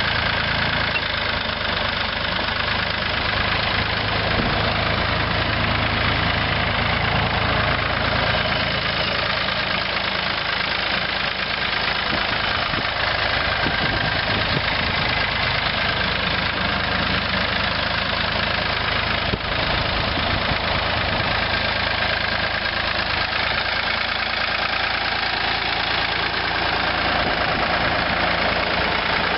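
A 1973 Ford 3000 tractor's three-cylinder diesel engine running steadily as the tractor is driven.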